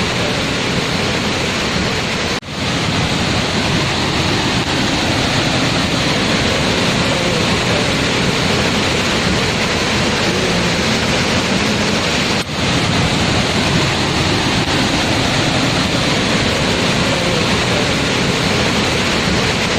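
Waterfall: a steady, loud rush of falling water, broken by two very brief drops in level, about two seconds in and about twelve seconds in.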